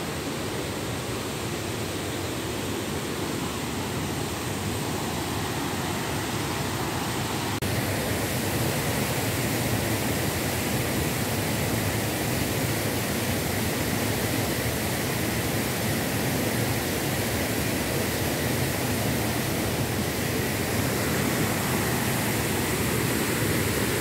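Rushing water of a river waterfall pouring over a weir: a steady noise that slowly grows louder, with a jump in level about eight seconds in.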